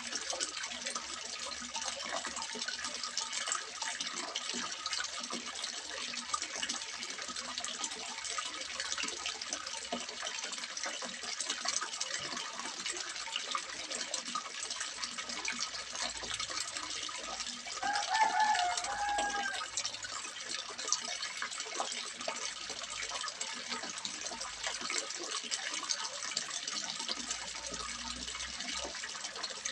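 Water splashing steadily into a small fish pond, a continuous hiss of falling water. About two-thirds of the way through, a single short wavering call sounds briefly over it.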